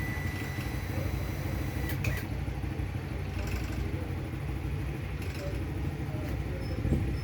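Motorcycle engine running steadily with a low rumble. A thin high whine stops about two seconds in, together with a brief click.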